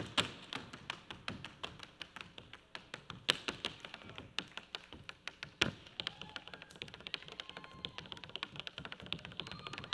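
Tap shoes striking a stage floor in rapid, uneven runs of sharp metal taps, with a few harder accented strikes.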